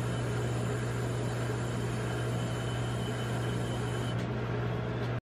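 Steady low hum with an even hiss: the refrigeration compressor of a rolled-ice-cream cold-plate machine running. It cuts off suddenly near the end.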